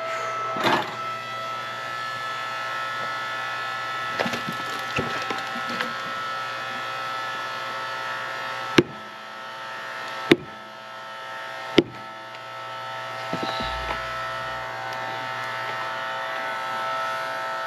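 Hydraulic log splitter running with a steady hum while it forces apart a knotty log. Wood gives way with three sharp, loud cracks about halfway through, each a second and a half apart, with smaller creaks and crackles before and after.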